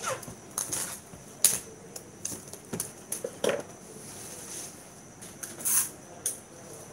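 Plastic wrap rustling and crackling in short bursts, with light clicks and taps, as trays of food are handled and wrapped.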